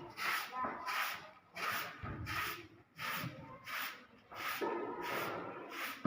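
Broom sweeping: a steady run of swishing strokes, about two a second.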